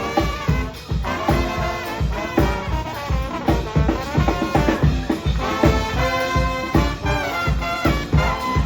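New Orleans-style brass band playing, its horns sounding held and moving notes over a steady low drum beat.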